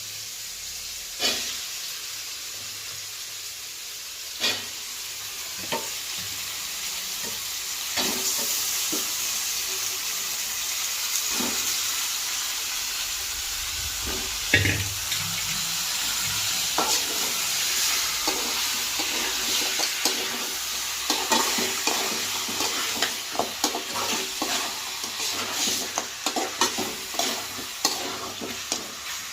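Chicken pieces frying and sizzling in a pan with onions and ginger-garlic paste while a spoon stirs them, knocking and scraping against the pan. The sizzle grows louder about eight seconds in, and the knocks come quickly near the end.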